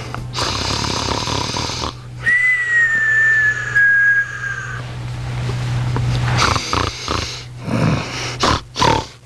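Snoring: a noisy in-breath, then a long whistling out-breath that falls slightly in pitch, followed by several shorter noisy breaths.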